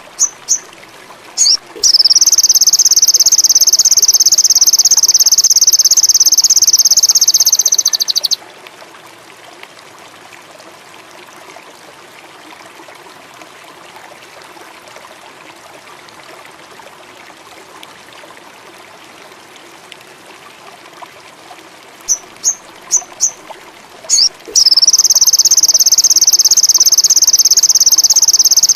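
Sogon indigo bird song. A few quick, sharp chirps lead into a long, even, high trill lasting about six seconds. The pattern repeats near the end. Between the phrases there is a steady, faint, water-like hiss.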